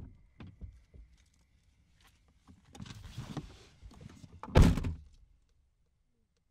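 Car door shutting with a heavy thump at the start, a few light knocks, rustling as someone settles into the driver's seat, then a louder car door slam about four and a half seconds in.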